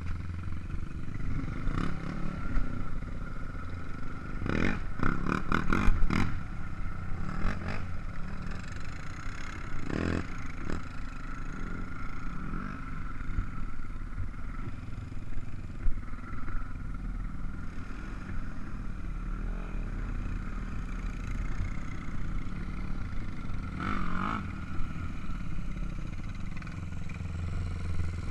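ATV (four-wheeler) engine running steadily as it is ridden over rough dirt trail, with several short bursts of sharp clattering knocks along the way.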